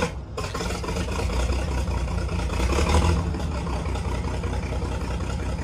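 A crane's engine running steadily, a low drone that swells slightly about three seconds in, as its cables pull on an engine-room hatch that is frozen in place.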